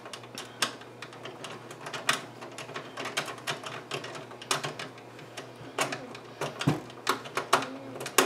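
Flat-blade screwdriver turning a slotted screw into the metal bracket of a PCI card in a desktop PC's steel case: a run of irregular metallic clicks and scrapes as the screw is driven home and tightened.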